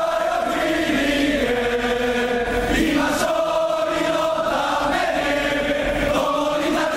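A crowd of football supporters singing a chant in unison: many male voices holding long notes that step up and down in pitch, with no break.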